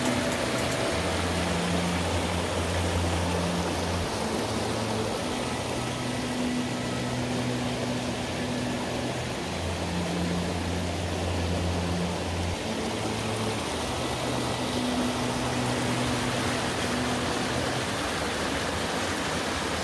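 Mountain valley stream flowing, a steady rush of water.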